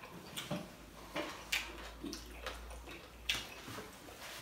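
Quiet eating sounds at a table: scattered soft clicks and crunches, about half a dozen, from people chewing crackers and a fork against a plate.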